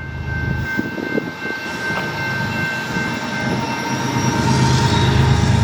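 A diesel train approaching a grade crossing, its low engine rumble building steadily louder over the last couple of seconds.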